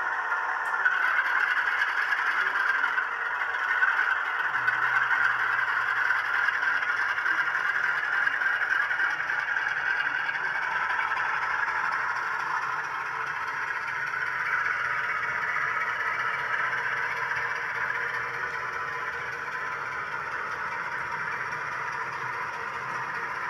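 Sound-equipped model Class 35 Hymek diesel locomotive running, its DCC sound decoder playing diesel engine sound through the model's small speaker, with the coaches' wheels rattling over the model track. A low steady hum joins in about four and a half seconds in, and the sound fades a little toward the end.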